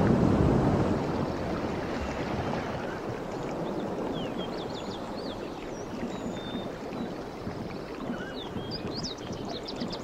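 Outdoor ambience: a steady rushing noise, loudest at the start and settling lower within a couple of seconds, with short high bird chirps from about four seconds in and a cluster of them near the end.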